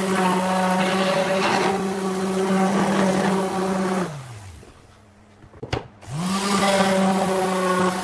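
Random orbital sander with a dust bag running steadily against pine board. About four seconds in it is switched off and winds down; after a sharp click it is switched back on and spins back up to speed.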